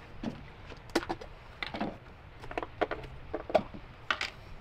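Irregular clinks and knocks of kitchenware being handled and set down on a truck tailgate during food prep: a camp bowl with a stainless-steel base, plastic tubs and utensils, a few of the knocks ringing briefly, the loudest about three and a half seconds in.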